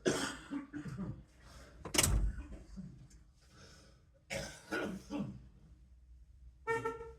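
A man clearing his throat and coughing, with a sharp knock about two seconds in. Near the end comes a short, high-pitched tone lasting about a third of a second.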